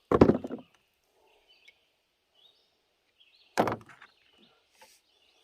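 Two brief handling knocks and clatters while a cap-and-ball revolver is being loaded, one right at the start and one about three and a half seconds in, with faint bird chirps in between.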